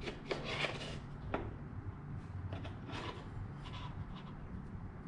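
Light handling noises: a few soft taps and rustles as a fog light is lifted out of its foam-lined cardboard box and turned over in the hands, over a low steady hum.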